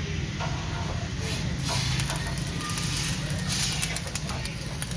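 Stick (arc) welding on a steel truck chassis rail: a steady frying hiss with rapid crackling, over a low hum.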